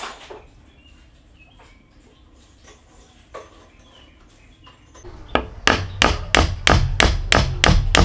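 A metal hammer striking a wooden peg, driving it into a timber mortise-and-tenon joint with a quick, even run of blows, about three a second, from about five seconds in. Before that there are only a few faint knocks.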